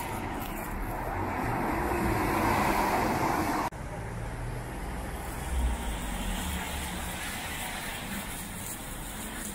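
Road traffic passing on a wet street, a vehicle's tyre hiss swelling over the first few seconds and then cutting off abruptly, followed by steadier, quieter traffic noise.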